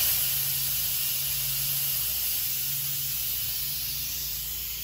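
Instant Pot electric pressure cooker venting steam through its pressure-release valve on quick release: a steady, loud, high hiss that eases slowly as the pressure drops.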